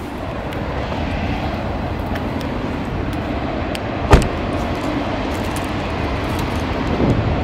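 A car door shutting with one thud about four seconds in, over a steady low rumble.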